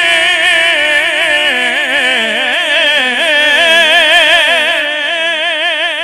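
A man's voice singing a naat into a microphone, drawing out one long wordless melismatic phrase with a steady, regular vibrato and slow rises and falls in pitch.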